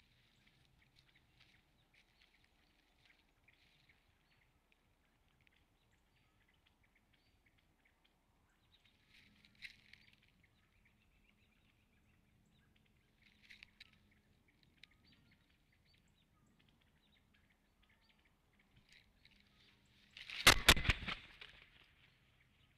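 Bald eagle taking off from its nest near the end: a sudden loud burst of several heavy wingbeats and rustling nest sticks, close to the microphone. Faint small-bird chirps come before it.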